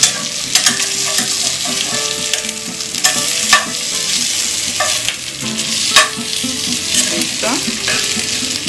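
Slice of turkey searing in pork lard in a frying pan, a steady sizzle. Several sharp clicks and scrapes sound against the pan along the way.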